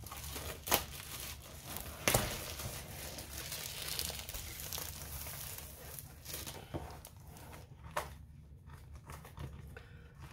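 Plastic wrapping crinkling and rustling as a plastic-wrapped rolled canvas is shaken and pulled out of a long cardboard box, with a few sharp knocks along the way.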